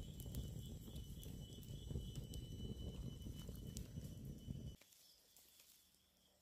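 Wood fire crackling, with a low rumble under the crackle. A steady high insect drone runs behind it. The fire sound cuts off abruptly about three-quarters of the way in, leaving only the faint drone.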